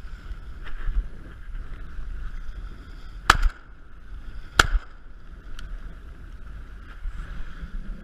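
Two shotgun shots about a second and a half apart, over a steady noise of wind and lapping water.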